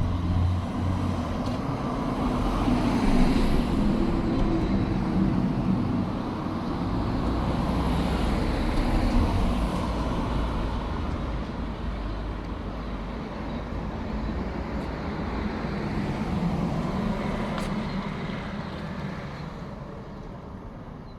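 Road traffic: motor vehicles passing with a steady rumble that swells and fades several times, easing off near the end.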